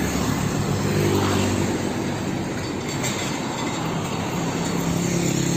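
Street traffic led by a loaded car-carrier truck driving past, its engine giving a steady low hum under continuous tyre and road noise.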